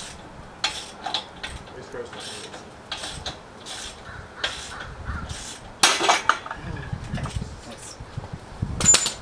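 Irregular metallic clinks and knocks from hand work on an engine hanging from a hoist chain, the loudest about six seconds in and just before the end, the last with a brief high ring.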